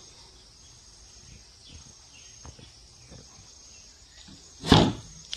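Faint handling clicks, then about three-quarters of the way through a single loud thump of wood as the plywood storage lid of a sofa cum bed is brought down shut.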